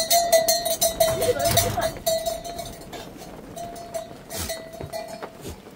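A livestock bell ringing at one steady pitch, on and off, among sheep and goats in a pen, with knocks and clatter.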